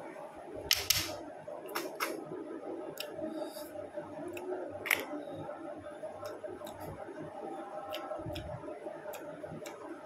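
Sharp clicks and cracks of snail shells being picked apart and eaten by hand over a steel plate, loudest as a pair about a second in, with scattered smaller ticks after. A steady hum runs underneath.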